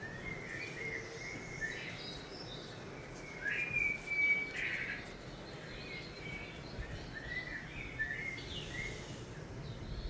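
Small birds chirping and singing, played from a bird video through a television's speakers, over steady background noise. A louder run of calls comes about three and a half seconds in.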